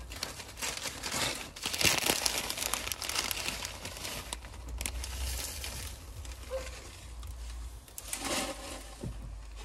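Newspaper packaging being crumpled and pulled off a potted cactus by hand, in irregular rustles, loudest about two seconds in; near the end, plastic bubble wrap crinkles as it is handled.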